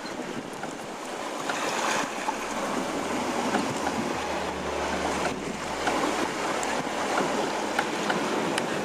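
Wind and water rushing past a Westerly Centaur sailboat under way in a strong breeze: a steady wash of wind noise and waves against the hull.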